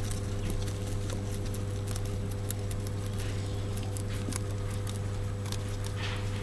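Rabbits chewing fodder: a run of quick, irregular crunching clicks, over a steady low hum.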